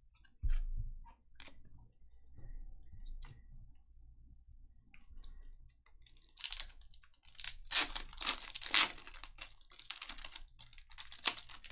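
A trading-card pack wrapper being torn open and crinkled: a run of loud, sharp tearing and crinkling noises in the second half, after a dull thump on the table about half a second in.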